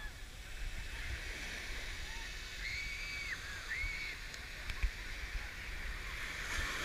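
Small ocean waves breaking and washing up on a sandy beach, a steady rushing hiss with wind rumble on the microphone. Two short high calls ring out a little before and after the middle.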